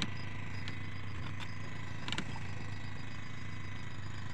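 Boat engine running steadily at idle, a low even hum, with a couple of light clicks.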